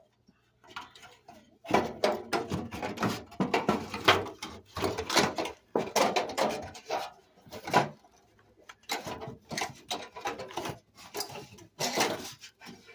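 Knife and chisel scraping and chipping at wood in quick, irregular strokes, with a short pause about two-thirds of the way through.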